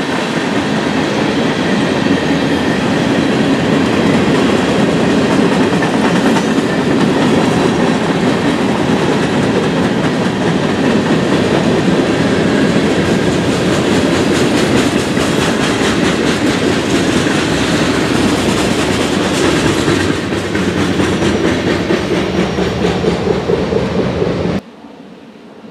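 Freight train cars (covered hoppers and centerbeam lumber flatcars) rolling past at close range: a steady, loud rumble with wheels clicking and clattering over the rail joints. Near the end the sound drops off suddenly to a much fainter rumble.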